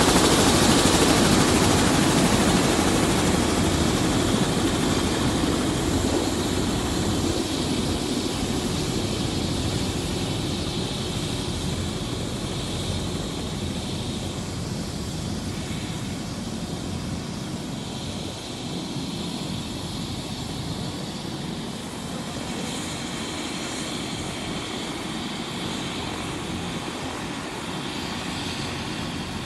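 Helicopter running on the ground, its steady engine and rotor noise growing fainter over the first half, then holding steady.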